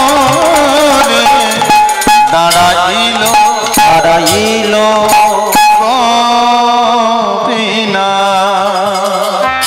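Bengali devotional kirtan music: a woman singing a slow, ornamented melody whose pitch waves and slides, over instrumental accompaniment with held notes and scattered percussion strokes.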